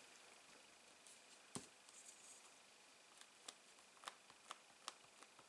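Near silence with faint, scattered clicks and taps, a slightly louder one about a second and a half in: small paper pieces and a glue bottle being handled on a craft table.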